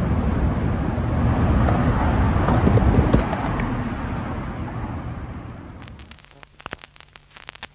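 Skateboard wheels rolling on asphalt against the rumble of traffic, with a few sharp knocks, fading out over several seconds. Then a quiet run of crackles and clicks from a turntable stylus set onto a spinning vinyl record, over a faint steady hum.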